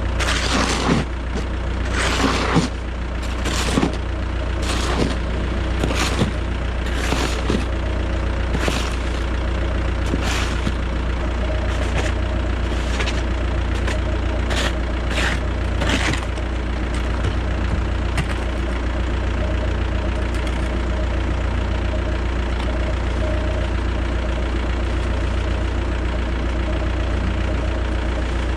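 Diesel engine of a Cat track skid steer running steadily, heard from the cab. For about the first sixteen seconds, short hissing sweeps come about once a second, then the engine runs on alone.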